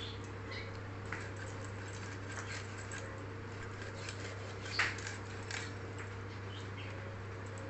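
Hilsa fish being cut on a boti, the upright curved floor blade: soft scraping and slicing with small clicks, the sharpest about five seconds in, over a steady low hum.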